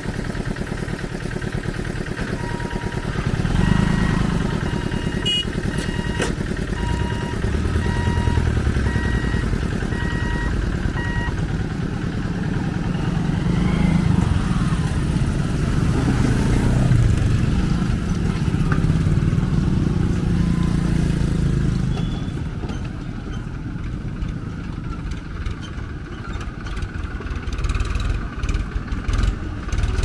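Motorcycle and small-vehicle engines running and passing at close range, with a repeated electronic beeping for several seconds early on. Near the end a tractor's diesel engine chugs as it approaches.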